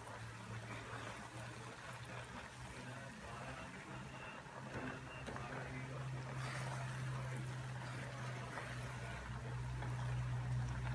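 Coconut milk bubbling and frothing at a rolling boil in a pan as it is cooked down into coconut oil and latik curds, stirred now and then with a silicone spatula, over a steady low hum.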